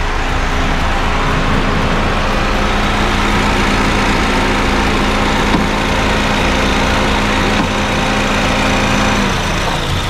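Honda Fit GD3's 1.5-litre four-cylinder engine idling with the air conditioning on; the AC compressor noise is fading out after a refrigerant top-up, which is taken to show the compressor was low on gas. A steady hum drops in pitch and stops near the end.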